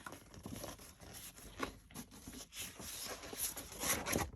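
Sheets of patterned designer series paper rustling and sliding against each other as they are handled, in a string of irregular scrapes and crinkles.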